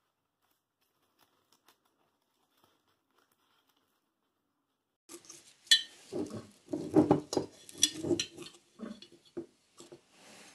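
Near silence for about five seconds, then kitchen sounds of making instant coffee: a ceramic mug moved on the counter, a metal spoon clinking against the mug and the coffee jar, and the jar handled as granules are scooped. The sharp clinks and knocks are irregular, with the loudest clinks a little after the cut and again about two seconds later.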